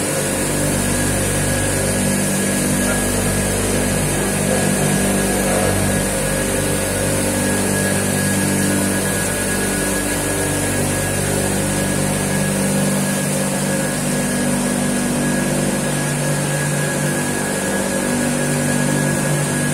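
A motor-driven machine running steadily with a constant hum.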